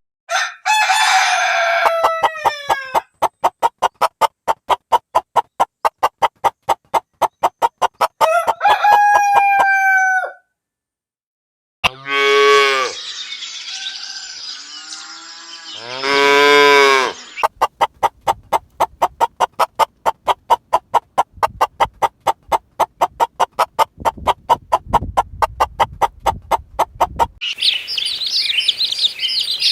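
Chickens: a series of short falling calls, then rapid even clucking at about six a second, a short pause, two rooster crows, and more rapid clucking. Near the end it switches to high chirping of small birds.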